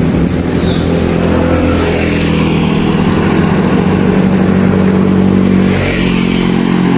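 A motor vehicle's engine running steadily close by, its pitch holding fairly level.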